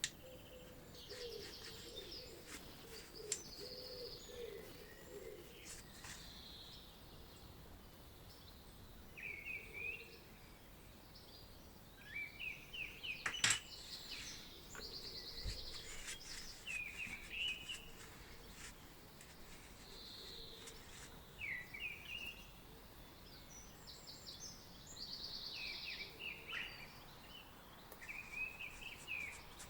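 Small birds chirping: short repeated calls and quick trills come and go throughout, with a single sharp click about halfway through.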